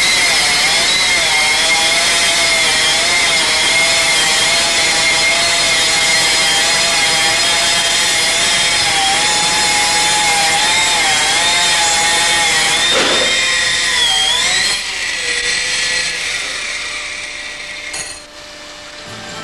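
Hydraulic stone-cutting saw's disc cutting stone: a steady high whine whose pitch wavers with the load. About three-quarters of the way through the pitch slides up, then the sound drops and fades away.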